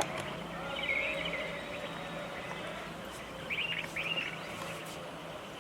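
Birds chirping in short bursts of calls, one about a second in and two more about three and a half to four seconds in, over a faint steady low hum.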